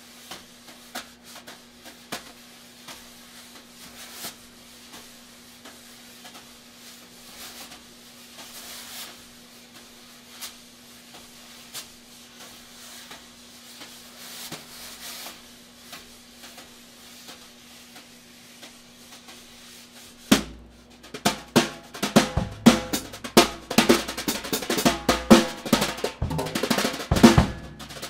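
Drum kit played with wire brushes: soft sweeps and light taps on the snare, with a faint steady hum underneath. About twenty seconds in the playing turns much louder and busier, with a dense run of sharp hits on the snare and drums.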